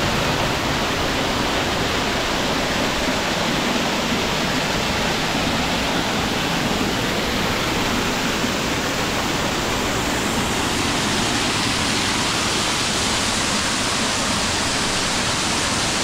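Waterfall close by: a steady, unbroken rush of falling water, an even hiss and rumble across the whole range.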